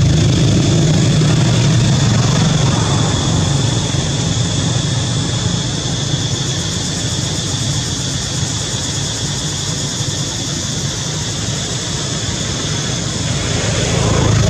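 Steady low rumble of a running engine, easing after a few seconds and swelling again near the end, over a constant high-pitched hum.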